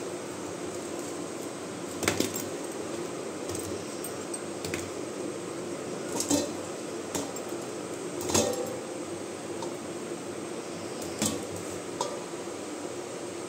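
Baked litti dough balls set down one by one on a stainless steel plate: several scattered knocks and clinks, a second or more apart, over a steady background noise.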